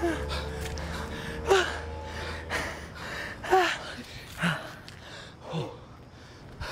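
A man gasping for breath, out of breath from running: a sharp gasp with a falling pitch about once a second.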